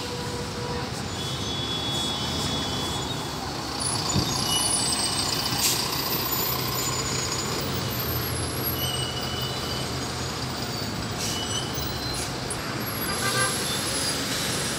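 City buses pulling out of a station exit and driving past, engines running, with brief hisses and several short high squeaks.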